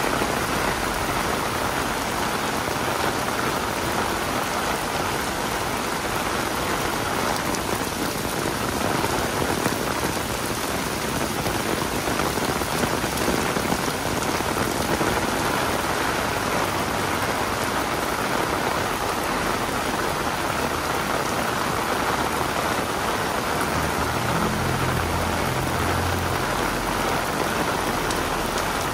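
Heavy rain falling steadily and drumming on an umbrella overhead, an even hiss. A low rumble comes in briefly near the end.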